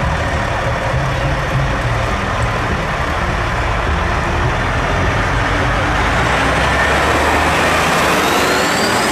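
Oshkosh HEMTT eight-wheeled military fuel tanker truck driving close past, its diesel engine rumbling steadily under tyre noise. A rising whine builds over the last few seconds as the truck draws level.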